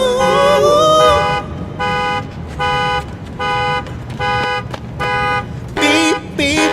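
Car alarm cycling through its tones: a wavering, rising wail, then a steady run of about eight beeps at about two a second. Music with singing comes back in near the end.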